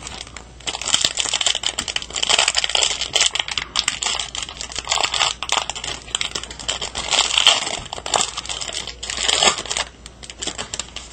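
Foil wrapper of a Pokémon booster pack crinkling as it is torn open and handled by hand, a continuous dense crackle with a louder burst near the end.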